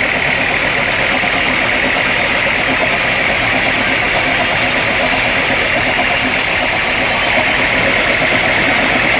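Sawmill machinery running steadily: a loud, even mechanical drone with a strong high hiss.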